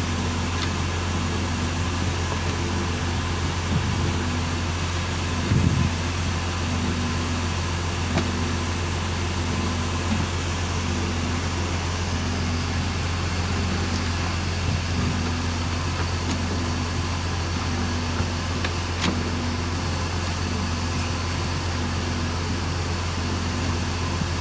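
Fishing boat's engine running steadily: a constant low drone with a faint regular pulse, and a few light knocks from handling the net.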